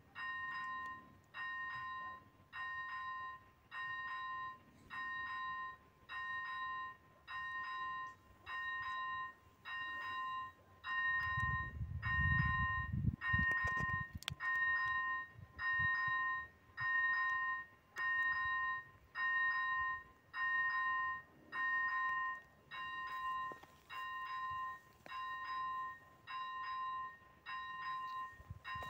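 Electronic ZV-01 warning bell of an AŽD 71 level-crossing signal ringing, an electronic ding repeating about once a second, the sign that a train is approaching. A low rumble passes under it about 11 to 14 seconds in.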